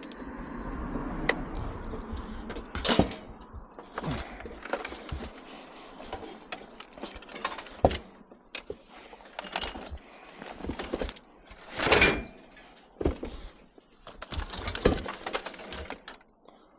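Electrical cable being chopped off a piece of scrap: irregular sharp clicks and knocks of tool and metal, the loudest about twelve seconds in.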